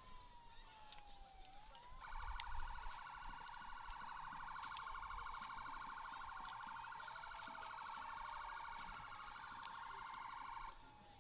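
Emergency vehicle sirens: a slow wail sweeping down and up in pitch, joined about two seconds in by a louder, rapid warbling siren tone that cuts off suddenly near the end.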